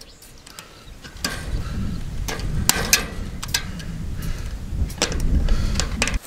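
Wire cutters snipping and working steel woven fence mesh: several sharp clicks and snaps, over a low rumble that stops abruptly near the end.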